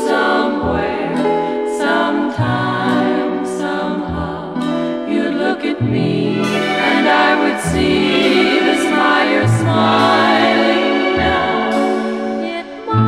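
Music: a choir singing sustained, wavering notes over instrumental backing, with the bass note changing every second or two.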